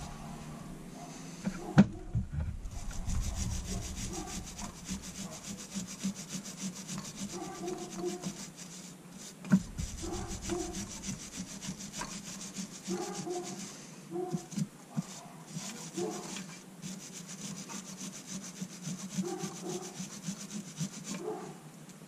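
Old gasket maker being scraped off the metal gasket surface of a Yamaha Grizzly carburetor with a small hand tool, in short repeated strokes over a steady low hum. There is a sharp knock about two seconds in and another near the middle.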